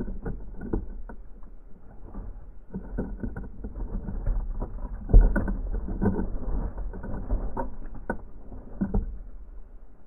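Sparrows feeding on a wooden platform feeder, pecking and scrabbling through sunflower seed close to the microphone: an irregular run of small knocks and rustles with wing flutters, the loudest knock about five seconds in, over a steady low rumble.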